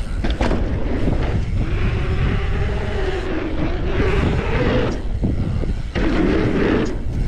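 Wind rushing over the microphone and a mountain bike's tyres rolling fast on pavement, with a few brief knocks from the bike, going onto a wooden ramp near the end.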